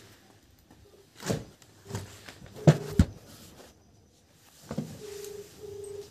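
Thumps and rustling from a handheld phone being moved and knocked about, several distinct knocks with the loudest pair about three seconds in. A steady tone sounds twice, briefly, near the end.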